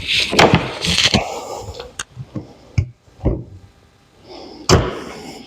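Rubbing and scraping of rubber glazing and window parts being worked into a window frame, followed by a few sharp clicks and knocks, the loudest near the end.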